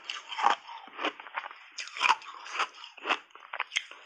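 Refrozen, reshaped ice being chewed in the mouth: a string of separate crisp crunches, roughly two a second and unevenly spaced.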